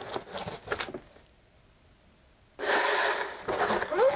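Close-miked eating sounds: a run of short crackly chewing noises, a pause, then a longer airy slurp and a brief rising hum near the end.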